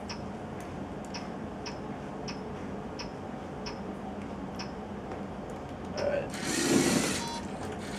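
LEGO Mindstorms NXT brick giving short high click-beeps, about one every half second to second, as its buttons are pressed to pick and start a program. About six seconds in, a louder whir of the robot's motors and plastic gears starts up for about a second.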